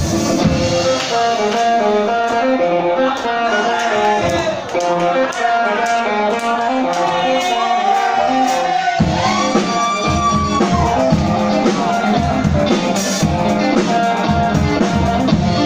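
A band playing live and loud: electric guitar playing a line of stepping notes over drums, with a held note that bends up and back down about ten seconds in.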